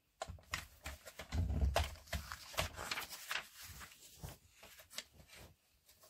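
Magazine pages being turned and handled: a run of paper rustles and crinkles, with a soft heavier thud about a second and a half in as the page settles, then lighter rustling that fades.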